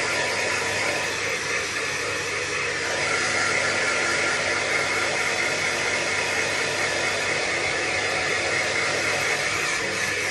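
Handheld hair dryer blowing steadily as it dries a puppy's fur: an even rushing whoosh with a high whine in it, a little stronger from about three seconds in.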